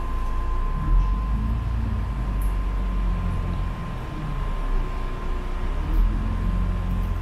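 Inside a moving city bus: the low rumble of the engine and road, with a thin steady whine over it and two jolts, about a second in and again near six seconds.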